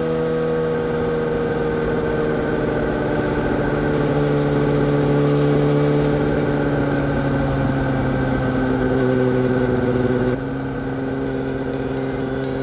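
Yamaha YZF-R1 inline-four with a full Yoshimura exhaust system, running at steady revs. The pitch sags slowly, then steps down and gets a little quieter about ten seconds in.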